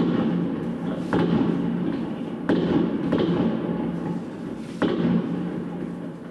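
New Year's fireworks going off outside, heard through a closed window: about five bangs about a second apart, each followed by a crackling rumble that dies away.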